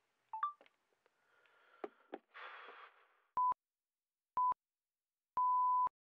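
A few short electronic chirps and clicks, then a faint crackle and a short burst of static. After that come three beeps at one pitch, a second apart, the first two short and the last one longer, in the pattern of radio time-signal pips.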